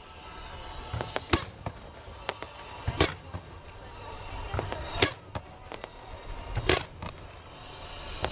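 Fireworks display: irregular sharp bangs of bursting shells, sometimes two close together, over a steady crackle.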